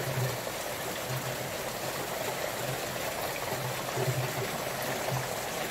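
Rainwater rushing and splashing down a downpipe made of stacked clear PET plastic bottles, a steady heavy flow.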